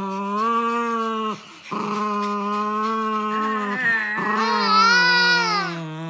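A dog howling in long, drawn-out calls: one call, a short break after about a second, then a second long call that rises in pitch and falls back about two-thirds of the way through.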